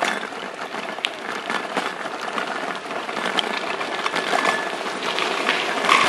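Bicycle rolling fast over rough, patched tarmac: a dense crackle of tyre and rattle noise with many small clicks, getting louder near the end.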